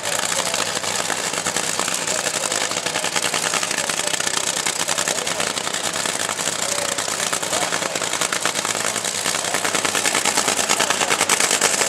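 Top Fuel dragster's supercharged nitromethane V8 idling with a steady, rapid crackling rattle, a little louder near the end.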